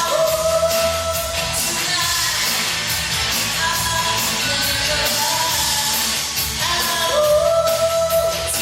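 A rock-style song sung over loud band backing music. The singer belts long held notes, one at the start and another about seven seconds in, with a stepping melody in between.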